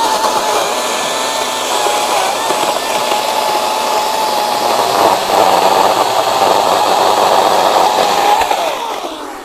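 Ryobi 40V HP brushless 20-inch cordless chainsaw cutting through a large log, with a steady high electric-motor whine and chain noise. About halfway through the pitch sags a little and it gets louder, and near the end the whine slides down and fades as the saw winds down.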